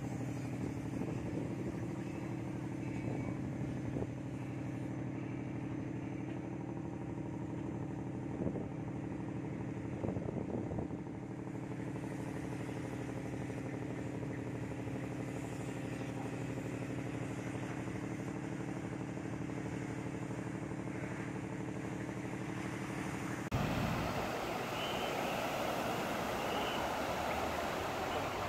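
An engine runs steadily at one constant speed. About 23 seconds in it gives way abruptly to waves breaking in surf, with wind noise.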